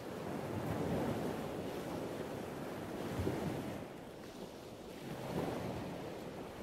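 Ocean surf washing onto a beach, a soft noisy wash that swells and eases every couple of seconds.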